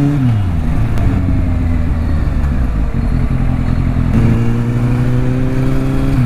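Kawasaki Z800's inline-four engine under way, with constant wind noise. The engine note falls as the throttle is eased at the start and runs lower for a few seconds. About four seconds in it steps up and holds steady, then drops again near the end.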